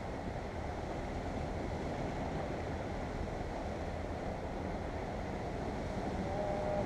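Steady wind rumbling on the microphone over waves washing against the shore rocks, with a brief faint pitched sound near the end.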